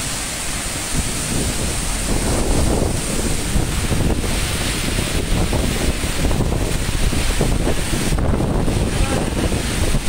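Wind buffeting the microphone in heavy gusts over a steady rushing roar of water and rain.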